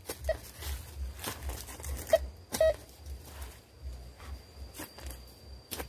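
Metal detector giving a few short beeps amid scattered rustling and knocking from handling in the dirt, with a faint steady high tone coming in about halfway through.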